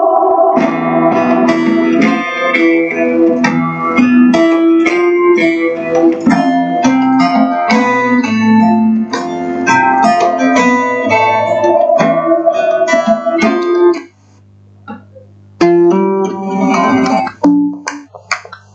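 Plucked-guitar music playing from an RSDO RD-L2US portable Bluetooth speaker. The music cuts out about 14 seconds in and starts again a second and a half later.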